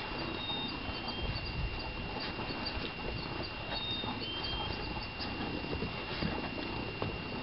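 Soft rustling and scratching of a gloved hand on a cat's fur, with many small irregular ticks, over a faint steady high whine.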